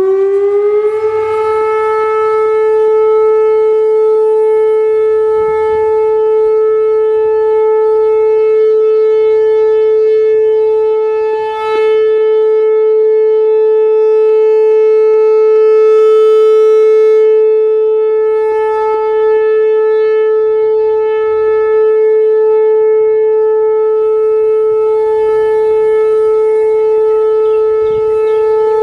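Whelen 4004 electronic warning siren sounding a steady alert tone in a siren test. The pitch glides up over the first second or so, then holds one steady loud tone, with a brief dip in loudness about eleven seconds in.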